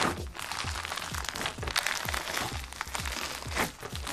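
Hands squeezing and kneading sticky slime packed with polystyrene foam beads, giving a dense, continuous crackling crunch as the beads are pressed.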